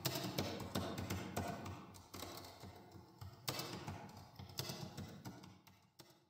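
Laptop keyboard typing: quick, irregular key clicks that fade out gradually toward the end.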